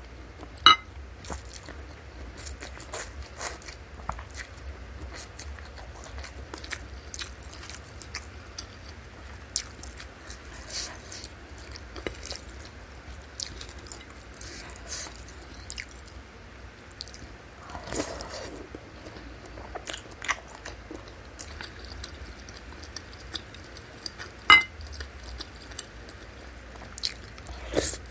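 Close-miked ASMR eating of bakso: wet chewing and biting of beef-tendon meatballs and fatty beef, with slurps of corn vermicelli and broth. A spoon clinks sharply against the ceramic bowl twice, once about a second in and again near the end.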